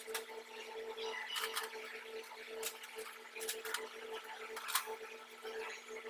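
Sharp metallic clicks and clinks of hand tools on the fittings while the depalletizer's broken air-hose connection is taken apart, about seven separate knocks with the loudest near the end, over a steady machinery hum.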